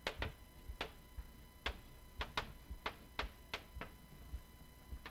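Chalk tapping and clicking against a slate blackboard while writing: a dozen or so sharp, irregularly spaced taps.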